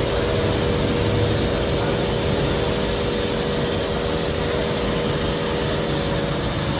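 Tsugami M08SYE-II Swiss-type CNC automatic lathe machining with coolant spraying over the cut: a steady rushing hiss, with a steady whine in several tones that stops shortly before the end.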